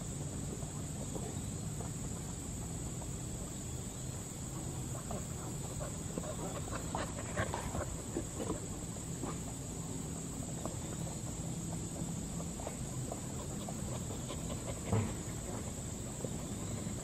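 Farmyard ambience: a steady high insect drone over a low steady hum, with a few short scattered animal calls or knocks. The loudest of these comes near the end.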